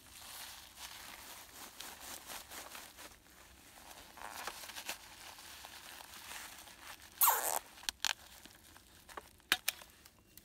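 Foil-jacketed flex duct insulation crinkling as it is handled. About seven seconds in comes a loud, quick ratcheting rasp as a nylon cable tie (Panduit strap) is zipped tight around the duct, followed by a few short clicks.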